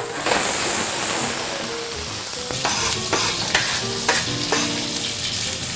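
Cachaça and butter sizzling hard in a hot roasting tray of small onions, a loud hiss flaring up just after the start as the liquid catches fire, then settling to a steady sizzle. A spoon scrapes and stirs the onions in the metal tray, with a run of short scraping strokes in the second half.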